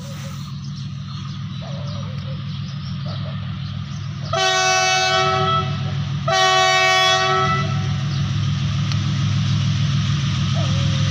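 Train rumbling past on the track, growing steadily louder, with two long blasts of the locomotive's horn a few seconds in, each a chord of several tones lasting about a second and a half.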